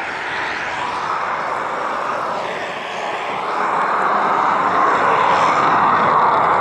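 Jet noise from a MiG-29M2 fighter's twin turbofan engines as it flies its display, a loud steady rush. About two and a half seconds in the tone sweeps hollow for a moment, then the noise grows louder from about three and a half seconds.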